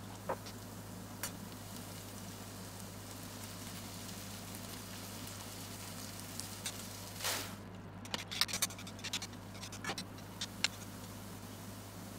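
Sliced onions sizzling quietly in a stainless steel pan as they are left to sit and brown on medium heat, over a steady low hum. A run of small crackles and ticks comes from about seven to eleven seconds in.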